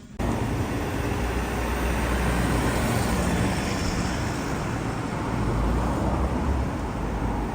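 Loud, steady rumble and rushing noise of a moving vehicle, which starts and stops abruptly.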